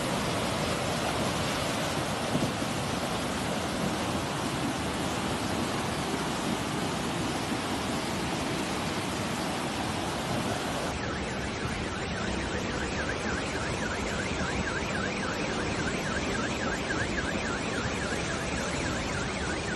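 Floodwater rushing in a fast muddy torrent, a steady churning noise. About halfway through, a faint warbling alarm tone joins it.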